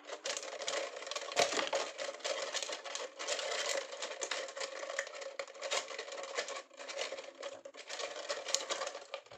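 Thin plastic drink-bottle strips crackling and crinkling as they are handled and curled with scissors: a dense, irregular run of small clicks and rustles.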